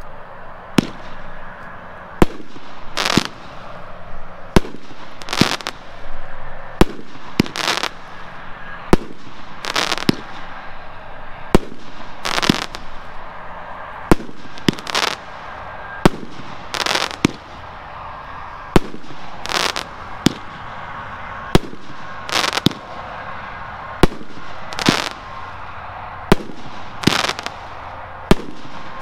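Grand Patriot 'Forbidden Fruit' 500-gram firework cake firing shot after shot: a steady sequence of sharp bangs about one a second, every other one a longer burst, over a continuous hiss.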